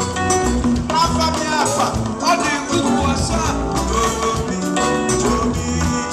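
Upbeat band music with a steady beat: drums, percussion and pitched instruments such as guitar and keyboard.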